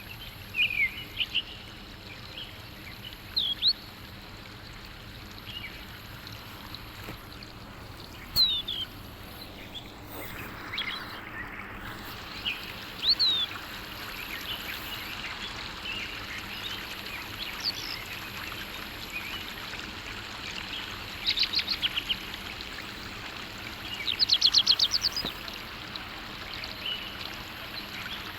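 Songbirds calling: scattered short chirps and whistled notes, with two fast trills near the end, over a steady hiss like running water.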